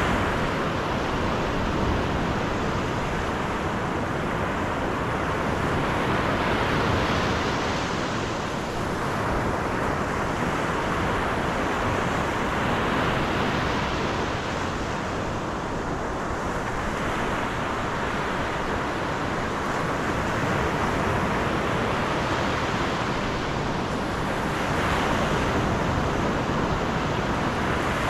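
Steady rush of wind and road noise from a car driving along, swelling and easing every several seconds.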